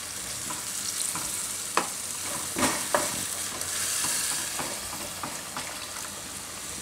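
A slotted spatula stirring and scraping a tomato-onion-spinach masala in a hot kadai, with a steady sizzle of frying under several sharp scrapes of the spatula against the pan.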